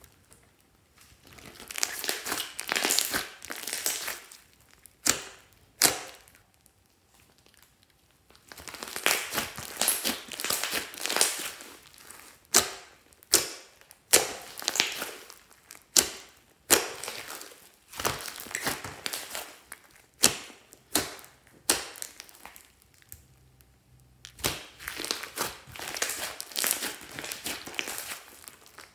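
Hands squeezing, kneading and stretching glossy slime mixed with foam beads: crackly, squelchy stretches of sound in bursts, broken by many sharp pops as trapped air bursts, with short quiet pauses between handfuls.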